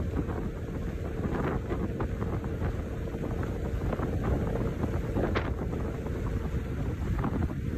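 Wind buffeting the microphone over a steady rumble from a moving road vehicle, with scattered small knocks.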